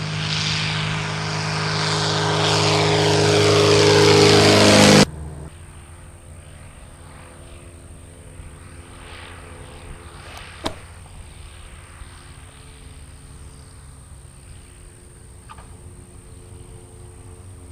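A Zenair STOL CH 701 light plane's propeller and Corvair air-cooled flat-six engine, growing louder as the plane approaches, then cutting off suddenly about five seconds in. After that a much fainter steady engine hum, with a single sharp click a few seconds later.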